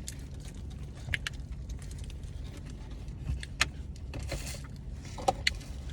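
Scattered light clicks and a short rustle from things being handled inside a car, over a low steady rumble.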